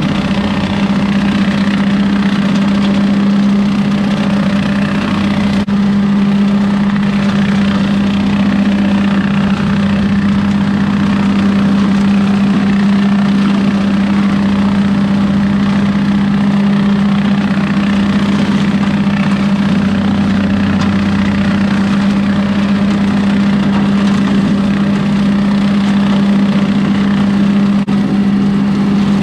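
John Deere 2038R compact tractor's three-cylinder diesel running steadily under load, driving a PTO rotary cutter (brush hog) that shreds dry corn stalks. The running is loud and even, with a constant low hum.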